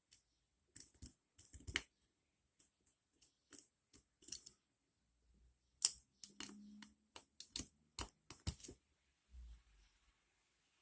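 Irregular small clicks and scrapes of a lock pick working the pins of a 5-pin dimple bike lock, in uneven clusters with one sharper click about six seconds in.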